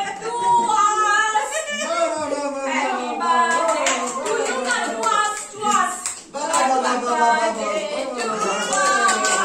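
A small group of voices singing together, with hands clapping along.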